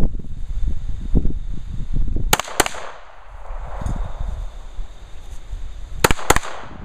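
Glock 22 pistol fitted with a 9mm conversion barrel fired in two double taps: two shots about a quarter second apart, then another pair about three and a half seconds later.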